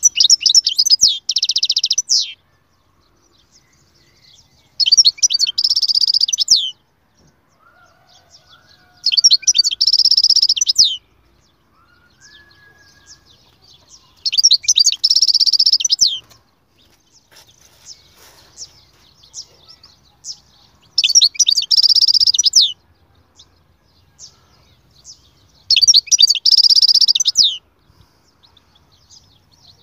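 European goldfinch singing: six loud, rapid, twittering song phrases of about two seconds each, repeated at regular intervals with short pauses between them.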